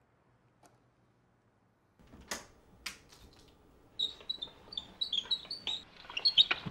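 A window being opened and climbed through: two knocks about two seconds in, then a quick run of short, high squeaks and taps from the frame.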